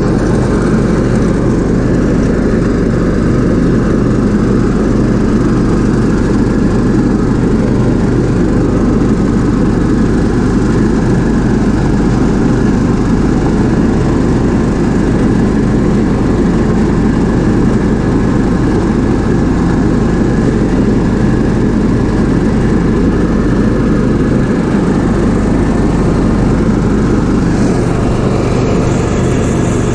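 Cub Cadet LTX 1045 hydrostatic riding mower's 20 horsepower Kohler engine running steadily under load, with the deck engaged and mowing grass.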